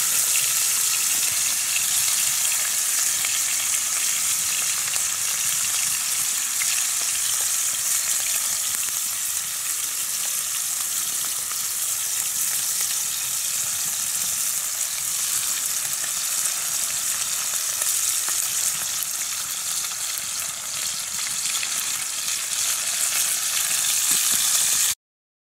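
Food sizzling steadily in a frying pan over a campfire while it is stirred with a utensil. The sound cuts off suddenly near the end.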